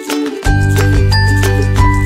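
Background music: a bright melody of quick, short notes, joined by a deep steady bass about half a second in.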